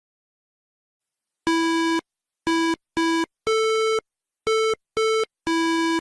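A short electronic tune of seven beeps at two pitches, starting about one and a half seconds in: three lower beeps, three higher ones, then a last lower one. Each beep holds one steady note.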